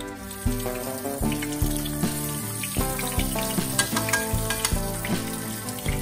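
Slices of bánh chưng sizzling and crackling as they fry in hot oil in a pan, under background music with a steady beat.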